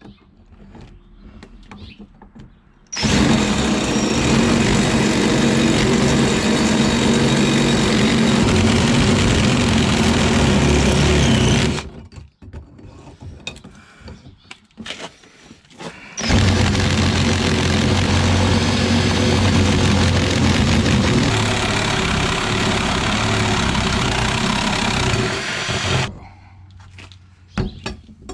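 Cordless drill boring through a metal seat bracket to enlarge a slot: it runs hard for about nine seconds from about 3 s in, stops abruptly, gives a few short bursts, then runs again for about ten seconds before stopping. A few light clicks near the end.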